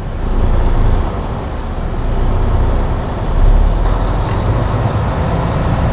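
Semi-truck's diesel engine running with road noise, heard inside the cab as a steady low drone that swells a little about three and a half seconds in.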